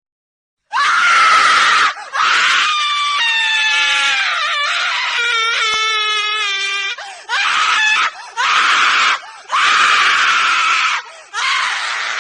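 A woman screaming over and over: a short scream about a second in, then a long, wavering scream lasting about five seconds, then four shorter screams in quick succession.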